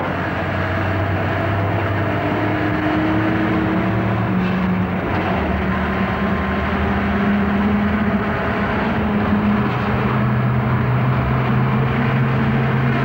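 An open Land Rover's engine running hard under load, its pitch shifting about four seconds in and again near ten seconds.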